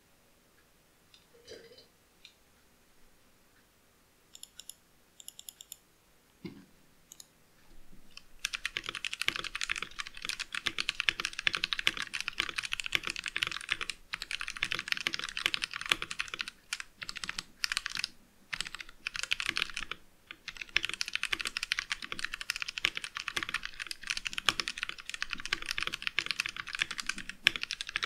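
Vortexseries VX5 mechanical keyboard in an acrylic sandwich case, with stock Outemu Brown tactile switches, being typed on. A few scattered key clicks come first, then from about eight seconds in steady fast typing with a few short pauses.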